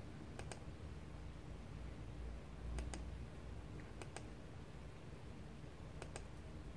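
Faint computer mouse clicks, four pairs of quick clicks a second or two apart, over a low steady hum.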